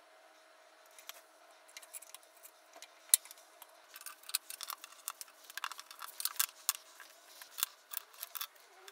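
Irregular sharp clicks and taps of small wooden pieces and hand tools being handled on a wooden workbench, a few at first and then coming thick and fast in the second half, over a faint steady hum.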